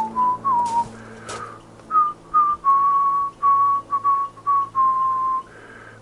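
A person whistling a slow tune in clear, held single notes that step up and down, with short breaks between them. A few faint clicks come in the first second or so.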